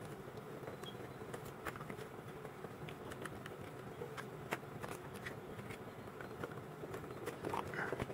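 Faint, scattered light clicks and rubbing from plastic tubing being pushed through plastic pipes and snap-fit elbow and tee fittings, over a low steady hum.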